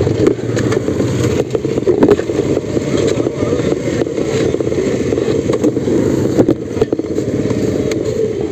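A motor vehicle's engine running while on the move, heard through a covered phone microphone with constant rubbing, scraping and knocks over it.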